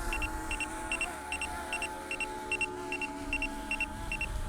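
Small quadcopter drone (Autel Evo Nano+) propellers whining, the pitch wavering up and down as the motors fight strong wind. Over it, quick pairs of high warning beeps repeat about two and a half times a second.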